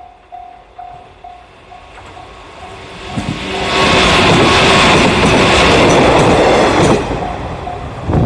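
Level-crossing warning bell ringing about twice a second while a train passes close by from about three seconds in to about seven, wheels clattering over the rail joints and drowning the bell; the bell then carries on as the train moves away, with a low thump near the end.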